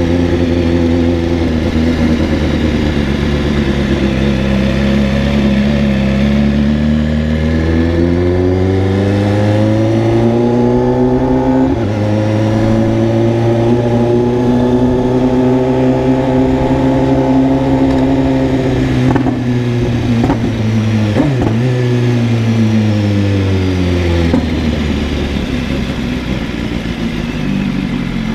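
Motor vehicle engine running steadily, then rising smoothly in pitch as it accelerates about a third of the way in. It holds a steady higher note for several seconds and falls back down near the end.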